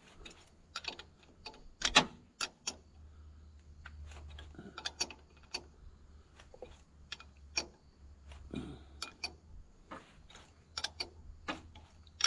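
Socket ratchet wrench clicking in short irregular runs as bolts are turned in, with the loudest click about two seconds in.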